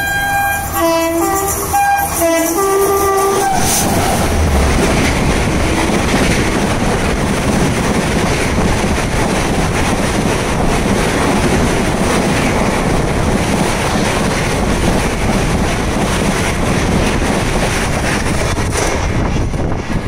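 A train horn sounding over the first three seconds or so, a held note breaking into several short honks that change pitch. Then the Shatabdi Express's coaches pass close alongside on the next track, a loud, steady rush of wheels on rail and wind.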